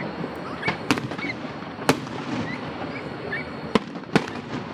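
Fireworks exploding overhead: four sharp bangs at irregular intervals, with a few fainter pops, over a steady background din.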